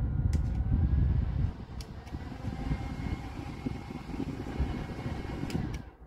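Small 4-inch USB desk fan running close to the microphone, its airflow giving a steady low rumble that is loudest in the first second and a half, with a faint thin motor whine that rises and then holds. A few light clicks, and the sound drops away suddenly just before the end.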